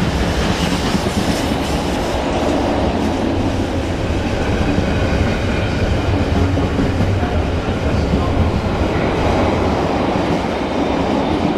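Freight train running through a station, its wagons rumbling past with the wheels clattering over the track.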